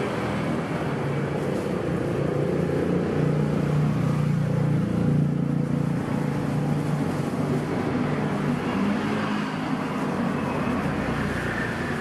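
A steady low mechanical rumble with a hum, swelling for a few seconds about four seconds in.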